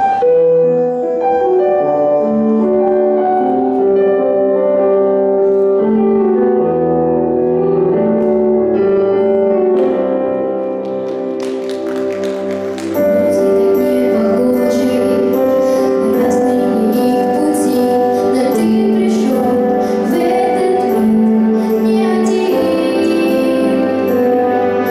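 A song with a girl singing into a microphone over backing music led by piano or keyboard; drums and fuller backing come in about halfway and the music gets louder.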